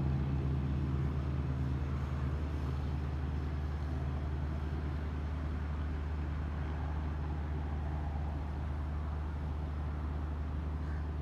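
A vehicle engine running steadily, a low even hum that holds the same pitch throughout.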